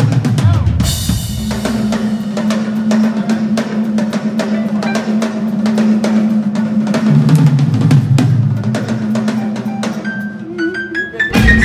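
Live reggae band playing an instrumental stretch, with the drum kit's snare and bass drum to the fore over a steady bass line. A cymbal crash comes about a second in, and a short run of rising high notes near the end.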